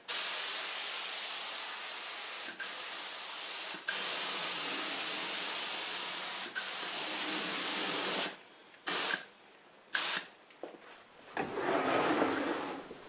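Compressed-air gravity-feed spray gun hissing as it sprays polyurethane, in long passes with three brief breaks as the trigger is let off, then two short bursts. Near the end, a lower rubbing sound as the plywood crosscut sled slides on the table saw.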